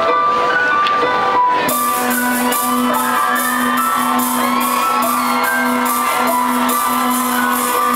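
Live band music over a concert PA: held keyboard notes, then about two seconds in a steady electronic beat with a pulsing bass note kicks in, with the crowd shouting and whooping over it.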